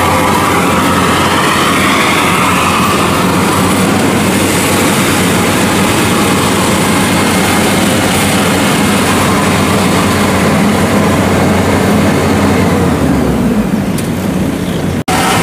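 WD115 Pro rice combine harvester running while it harvests. Its engine and threshing machinery make a loud, steady drone, broken by a momentary dropout near the end.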